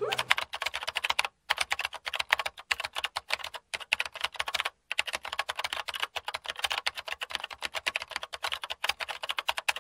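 Rapid keyboard-typing clatter: a fast, dense run of key clicks with a few short breaks.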